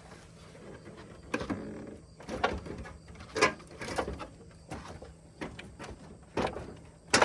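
Irregular knocks, scrapes and short squeaks of hands and tools working on a car's body panels, about one a second, with a sharp click near the end.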